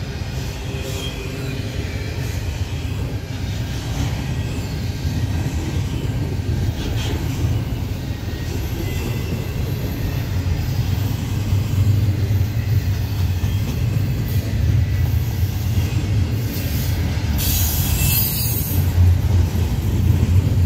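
Double-stack intermodal well cars of a CN freight train rolling past: a steady low rumble of steel wheels on rail that grows louder toward the end. A brief high-pitched wheel squeal comes near the end, with fainter squeals earlier.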